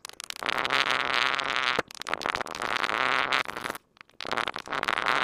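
Kinetic sand being pressed down into a tall glass, giving a grainy crackling that comes in three stretches with short breaks between.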